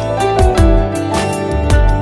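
Background music: an instrumental break in a soft Hindi love song, with sustained melody notes over a steady beat.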